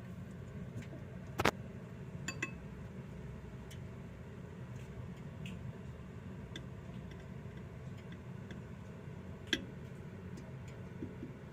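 A few sharp small clicks and scattered faint ticks over a low steady hum: one louder click about a second and a half in, a quick pair soon after, and another near the end.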